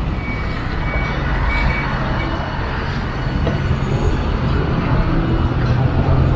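Hiroden 5200-series low-floor tram rolling slowly into the stop. Its motor hum and wheels on the rails grow a little louder near the end as it comes closer.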